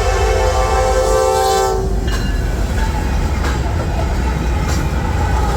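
Freight locomotive air horn sounding a chord, cutting off about two seconds in, followed by the train's deep rumble and the clatter of wheels over the rails as it passes.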